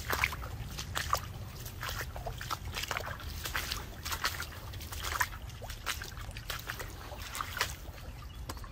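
Shallow creek water splashing and trickling in irregular little splashes, a few a second, over a steady low rumble.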